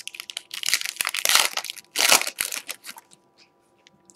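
Foil wrapper of a Panini Prizm basketball card pack being torn open and crinkled by hand, a dense crackly rustle with two loudest bursts, dying down to faint rustles after about three seconds.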